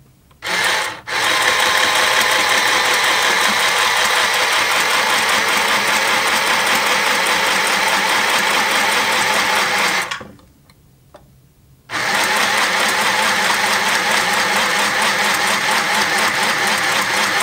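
Motor of a cheap plastic mini sewing machine running at speed while winding a bobbin: a short burst, then a steady whir for about nine seconds, a stop of about two seconds, and running again. The machine is struggling as thread tangles and gets drawn into the mechanism.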